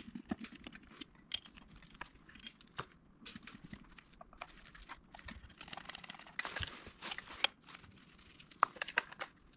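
Scattered small metallic clicks and taps with bits of scraping and rustling: a hand tool working the top-cover screws of a Solex Kadron carburetor, tightened in sequence, while the part is handled on the bench.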